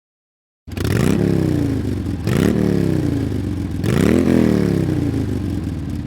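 An engine revved three times, each rev climbing quickly in pitch and then falling away slowly, running on between revs.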